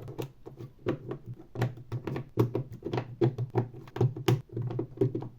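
LEGO Technic plastic pieces being handled and pressed together: quick, irregular clicks and taps, several a second.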